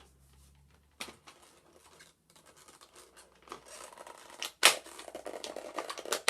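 Toy Poké Ball packaging being opened by hand: mostly quiet at first with a single click, then scratching, tearing and crackling of cardboard and plastic building up in the second half, with a sharp snap about four and a half seconds in.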